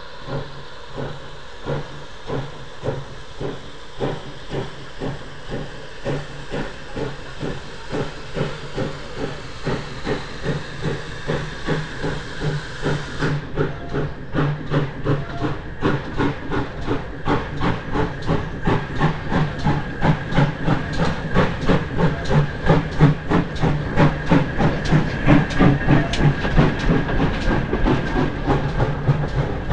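Steam locomotive pulling away, its exhaust chuffing in even beats over a steam hiss. The beats quicken from a little over one a second to about two and a half a second and grow louder as it draws past.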